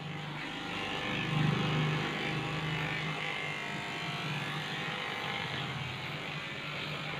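Cordless electric dog clipper running steadily with a low hum, swelling briefly about a second and a half in as it cuts through the dog's coat.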